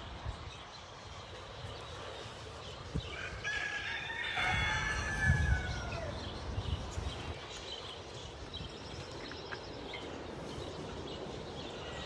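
A rooster crowing once, a single call of about two and a half seconds starting a little over three seconds in and falling away at the end. A few low thumps sound during the crow.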